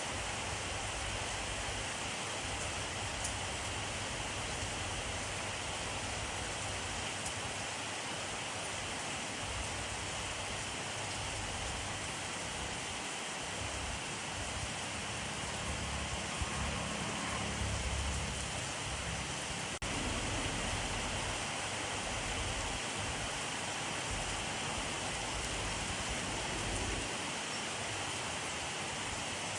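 Steady rainfall, a dense, even hiss of drops, with a low rumble swelling briefly a little past the middle and a single sharp click near two-thirds of the way in.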